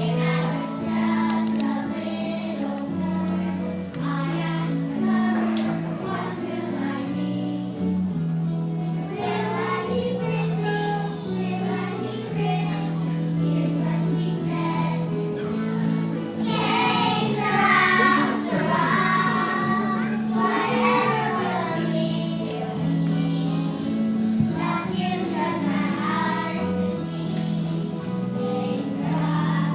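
Young voices singing a song over a musical accompaniment with a held, steady bass line; the singing grows fuller and louder about two-thirds of the way through.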